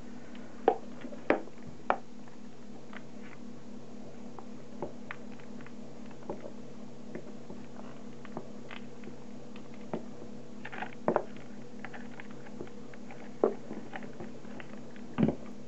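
A spoon scooping flour out of a plastic tub into a measuring jug: scattered light clicks and taps of the spoon against the containers, a few sharper ones about a second in, around eleven seconds and near the end, over a steady low hum.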